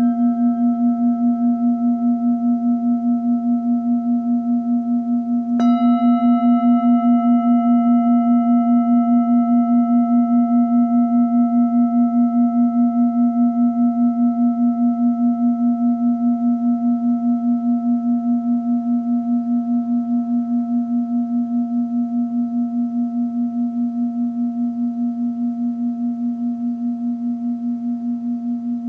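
Singing bowl ringing with a low, wavering hum and a few higher overtones. About six seconds in it is struck again, and a brief bright attack of high partials fades within a few seconds. The tone then slowly dies away.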